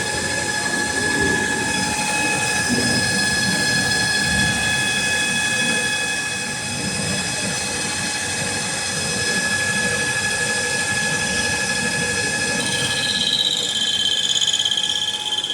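ZMM LS600M cycle-controlled metal lathe running an automatic turning cut: a steady high-pitched whine made of several tones over a rough grinding noise. About 13 s in, a higher wavering tone joins.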